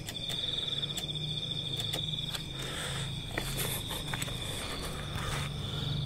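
Crickets trilling steadily in a continuous high, finely pulsing chirr, over a low steady hum. A few rustles and clicks come through midway.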